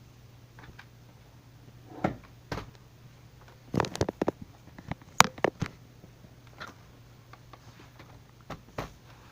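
Irregular clicks and knocks of an HP Compaq b6710 laptop being handled, about a dozen in all, the loudest bunched together midway, over a faint steady low hum.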